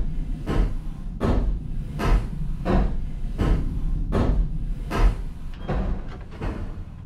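Slow, steady knocking on a door, about one knock every three-quarters of a second, over a low rumble. The knocks grow fainter and less even near the end.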